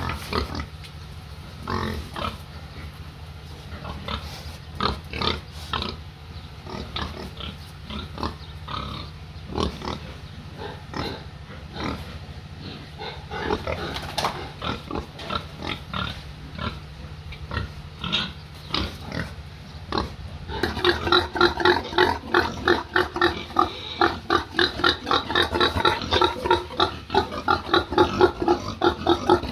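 Pigs grunting on and off; about two-thirds of the way through the grunting turns louder and rapid, several calls a second. A steady low hum runs underneath.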